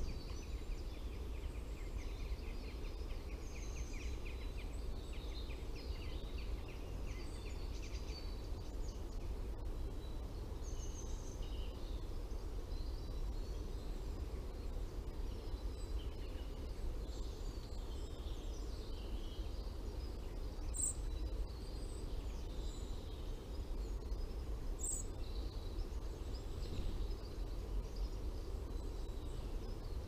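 Faint calls and songs of several woodland birds over a steady low background rumble. A run of quickly repeated notes comes about one to eight seconds in, and two sharp high chirps come later.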